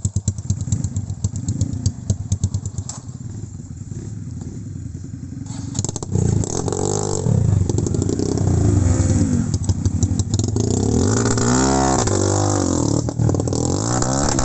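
Trail motorcycle engine running with a steady pulsing beat for the first few seconds, then, from about six seconds in, revving hard again and again, its pitch rising and falling with the throttle.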